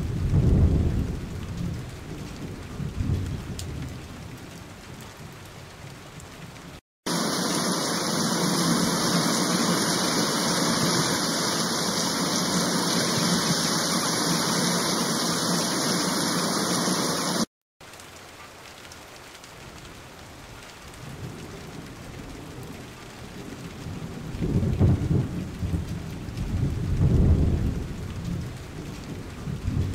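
Running water: a small rock waterfall splashing into a pond, with low rumbling near the start. About seven seconds in, an abrupt cut brings a louder, very steady hiss of fountain jets spraying over the lake, which stops abruptly about ten seconds later; quieter splashing water follows, with low rumbling again near the end.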